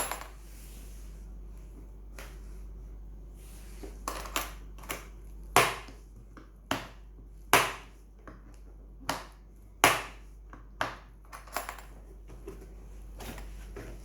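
A series of sharp, irregular clicks and knocks from the tool case being handled, with its latches and hard shell knocking, over a low steady hum.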